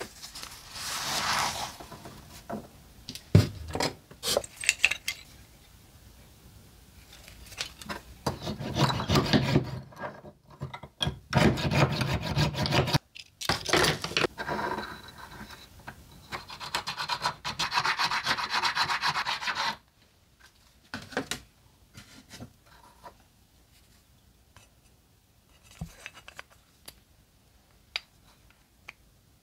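A hand file rasping a dark wooden knife-handle block in several bouts of back-and-forth strokes, shaping the drilled hole for the blade's tang. About twenty seconds in the filing stops, leaving a few light clicks and taps as the tang is test-fitted into the block.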